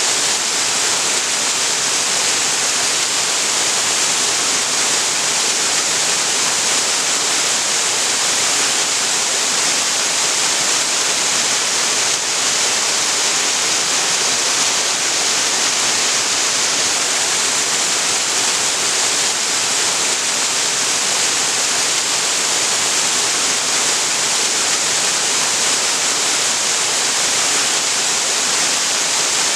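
Waterfall pouring steadily into a creek: a constant, loud hiss with most of its weight in the higher range.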